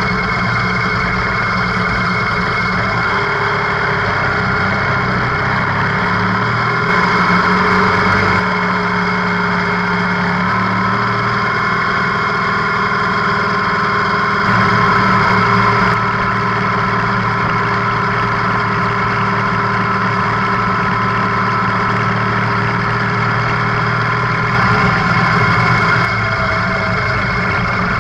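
Motorcycle engine running steadily at a low, even pace, heard from a camera mounted on the bike, with three brief louder moments.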